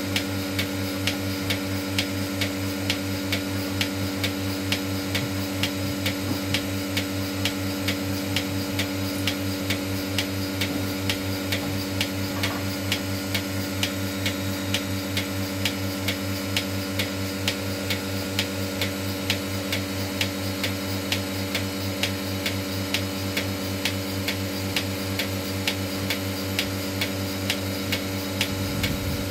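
Portable bucket milking machine running during milking: the steady hum of its vacuum pump with the pulsator clicking evenly, about two clicks a second.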